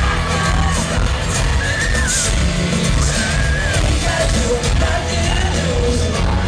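Live pop-rock band playing loudly in an arena, with heavy bass and drums and high voices yelling and singing over the music.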